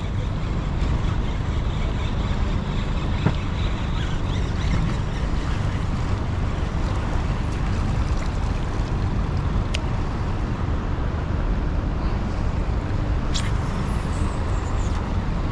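Steady low rumble of a boat's motor running on the water, with wind buffeting the microphone. A single click about ten seconds in and a brief high, falling squeak near the end.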